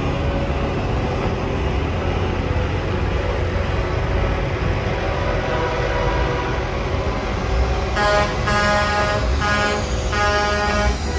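Steady low rumble of idling vehicles, then about eight seconds in several vehicle horns start honking in repeated blasts, overlapping one another.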